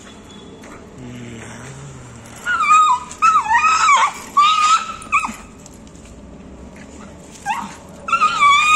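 A dog whining in a run of high-pitched, wavering whimpers and yips, starting a few seconds in and returning in shorter whines near the end: the excited whining of a dog straining on its leash toward another dog.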